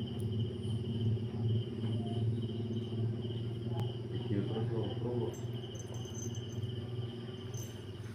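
Crickets trilling steadily over a low, steady hum. About four to five seconds in comes a brief patch of soft scuffling from two cats play-fighting on a tiled floor.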